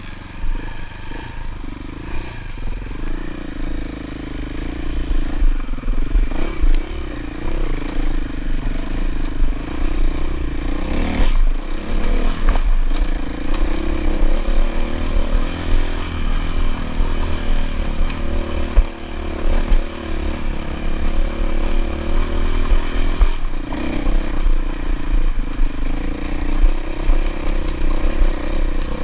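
Enduro dirt bike engine revving and pulling as the bike rides a rough forest trail, its pitch rising and falling with the throttle, with brief dips about a third and four-fifths of the way through. The bike rattles and clatters over the rough ground.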